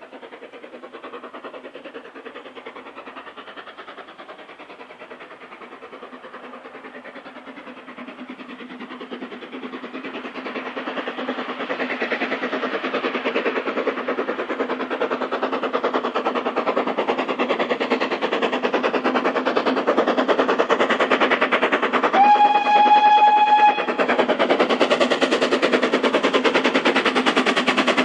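Steam locomotive working a train, its exhaust beating rapidly and growing steadily louder as it approaches. About three-quarters of the way through it gives one whistle blast lasting about a second and a half.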